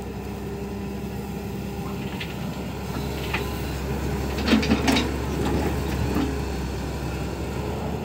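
Hyundai crawler excavator's diesel engine running steadily under hydraulic load as it swings a full bucket. About halfway through, the bucket dumps soil into the steel body of a tipper truck: a few thuds and a rattle of falling clods.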